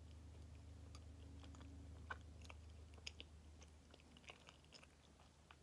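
Faint chewing of a soft lemon Kamome no Tamago cake, with scattered small wet mouth clicks over a low steady hum.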